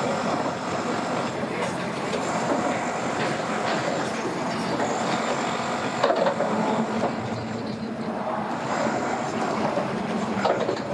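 A steady mechanical rumble with rattling and occasional sharp clicks.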